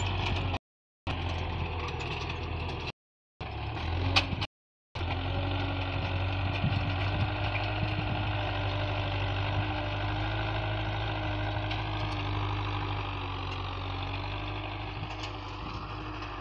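Farm tractor's diesel engine running steadily under load while pulling a tillage implement through ploughed soil. The sound cuts out briefly three times in the first five seconds, with a sharp knock about four seconds in.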